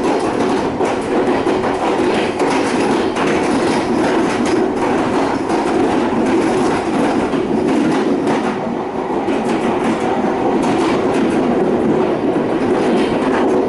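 Passenger train running on the rails: a steady rumble with the intermittent clack of wheels over the track.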